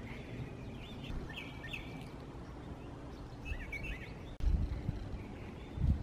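Outdoor background with small birds chirping: two short runs of chirps, about a second in and again past the middle. Low rumbling comes in during the second half.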